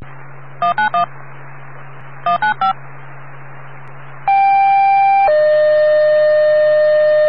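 Fire dispatch radio channel: two quick groups of three DTMF beeps over a steady radio hum, then about four seconds in a two-tone sequential page — a higher tone for about a second, then a longer, lower tone — alerting the Keene fire department.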